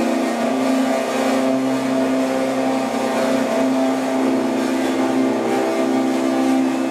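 Electric guitar played through effects, holding a loud, dense distorted drone on one low pitch with many overtones, wavering slightly but steady throughout.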